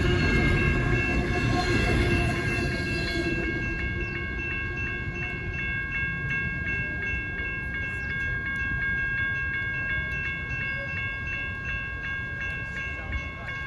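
Freight train rolling through a grade crossing, its rumble and wheel noise dropping away about three seconds in. A railroad crossing bell rings on steadily in rapid, even strokes.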